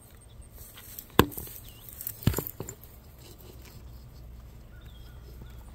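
A few sharp clicks and knocks over a faint low hum, the loudest a little over a second in and two more about a second later.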